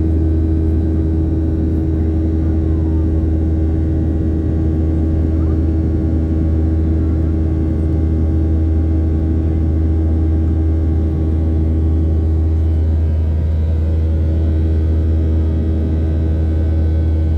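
Cabin noise of a Boeing 737 climbing out after takeoff: the turbofan engines and the airflow make a loud, steady drone with a deep hum and a few held tones above it, heard inside the cabin.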